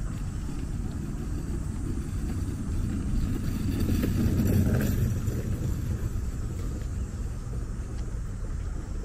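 A steady low outdoor rumble, swelling for a second or two about four seconds in.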